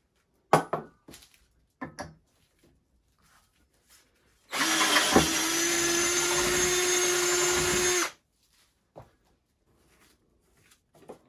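Cordless drill running steadily for about three and a half seconds with a steady whine as a twist bit bores into square steel tubing, then stopping abruptly. A few short knocks come before it starts.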